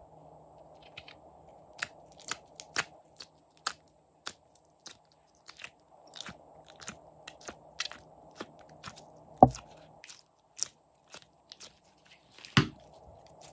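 Sticky slime clicking and crackling as fingers pull it out of the cells of a plastic hexagon tray and handle it, a few sharp clicks a second. Two louder thuds stand out, one about two-thirds through and one near the end.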